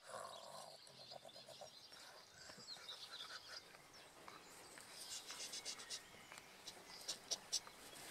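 Small birds chirping: quick runs of short, high notes, growing louder over the last few seconds.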